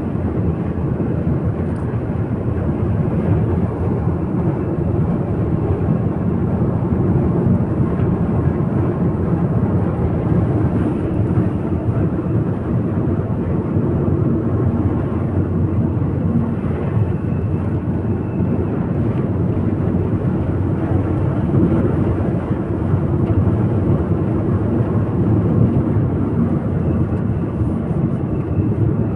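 Steady road and engine rumble from a car on the move.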